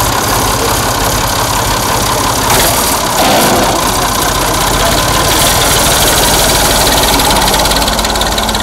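Farm tractor's diesel engine running steadily under load, the tractor pulling against a man holding it back by its rear drawbar.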